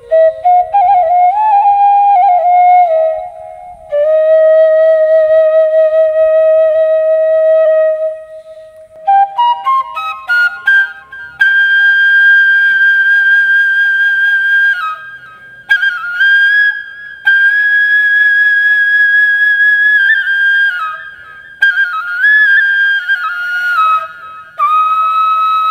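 Background music: a solo flute melody of long held notes with a slight waver, in phrases split by short pauses, with a quick rising run of notes about ten seconds in.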